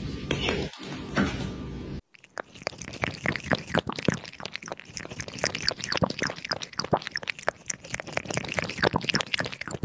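A cat lapping liquid from a paper cup: quick wet tongue clicks, several a second, starting about two seconds in.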